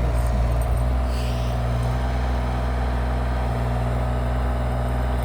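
Diesel excavator engine running steadily while plowing snow, a constant low drone.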